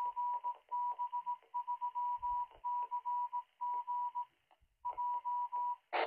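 Morse code identification from an amateur radio repeater, heard through a Retevis RA685 handheld's speaker: a tone of about 1 kHz keyed on and off in dots and dashes over radio hiss. It ends in a short burst of noise as the signal drops.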